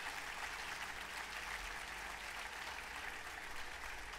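Audience applauding at the end of a tango song, a steady patter of clapping hands.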